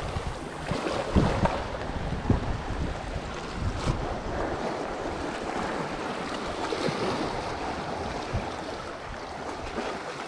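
Wind buffeting the microphone over sea waves washing against the rocks. The gusts are strongest in the first few seconds, then ease.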